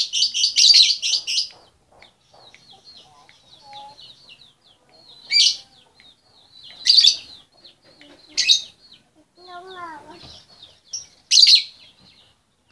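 Lovebird calling, a female calling for the male: a quick run of loud shrill chirps at the start, then single piercing calls every second or two over soft high twittering. A lower call that glides up and down comes in near ten seconds.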